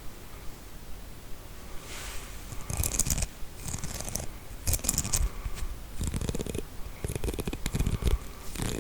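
Combs played as an ASMR trigger: about six short rasping strokes of fast clicking teeth, starting about two seconds in.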